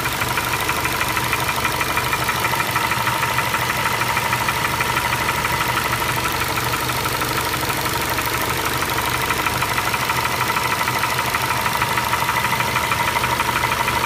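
Ford 2.5-litre inline-four engine, fully warmed up and idling, with a steady, rapid tapping knock from the top of the engine around cylinders 2 and 3. This is the sign of a crack in the cylinder block between cylinders 2 and 3, a noise often misdiagnosed as valve-train noise.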